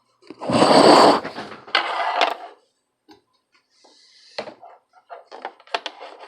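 Tools and parts being handled on a workbench: a loud rustling clatter near the start, a shorter one about two seconds in, then a run of light clicks and taps.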